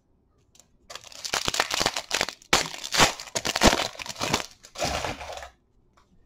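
Foil wrapper of a baseball card pack being torn open and crinkled by hand: a dense crackling rustle that starts about a second in and stops shortly before the end.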